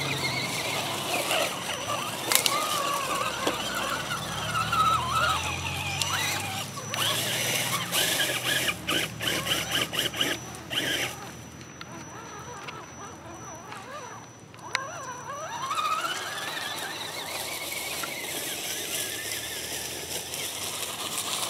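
RC scale crawler's electric motor and geared drivetrain whining, the pitch rising and falling with the throttle as the truck churns through mud. A run of rapid clicks comes in the middle, and the whine climbs again near the end.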